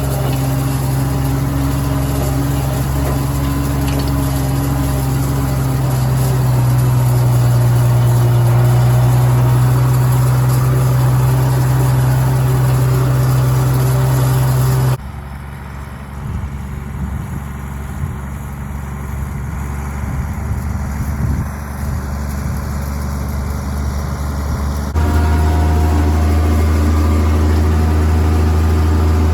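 International Harvester 826 Hydro tractor engine running steadily. About halfway through it drops to a quieter, rougher sound for roughly ten seconds, then comes back at a steady level with a lower tone.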